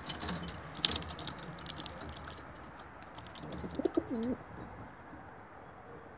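Racing pigeon giving one short, wavering coo about four seconds in. Before it, near the start, come a run of light clicks and one sharp tap.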